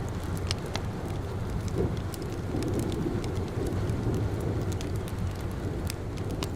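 Steady rain with a low, even rumble, mixed with scattered sharp crackles and pops from a wood fire.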